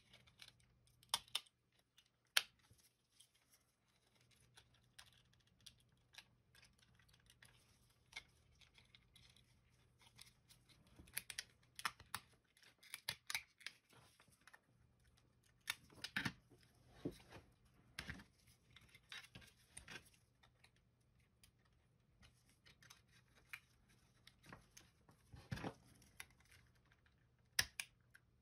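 Scattered small clicks, taps and scrapes of metal tweezers and a small screwdriver prying at the clipped-together plastic shell of a Microsoft IntelliMouse Optical, with a few sharper clicks among them.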